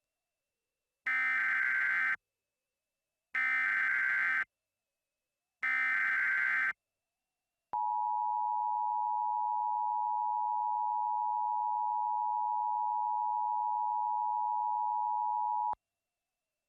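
Emergency Alert System signal: three roughly one-second bursts of warbling digital data tones (the SAME header), then the steady two-tone attention signal held for about eight seconds before cutting off sharply. It marks the start of a new emergency alert message.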